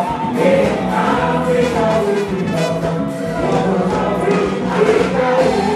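Live band with several voices singing together over drums and accompaniment, in a loud outdoor concert mix.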